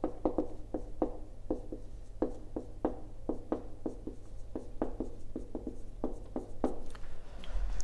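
Marker pen writing on a whiteboard: a run of short strokes and taps, about two or three a second, over a low steady hum.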